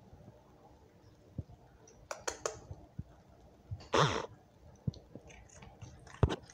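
Small sharp clicks and crunches from a cat eating treats out of a hand, with one short vocal sound about four seconds in.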